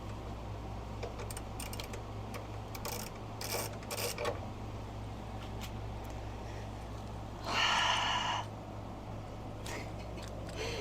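Faint scattered clicks and clinks of a hand wrench being fitted and worked on a small fastener, over a steady low hum. About three-quarters of the way through there is a one-second rasping rush that is the loudest sound.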